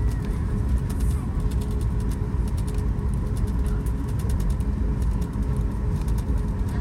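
Cabin sound of a Boeing 737 MAX 8 taxiing: its CFM LEAP-1B engines run at low power as a steady deep rumble with a faint steady whine and light clicking rattles.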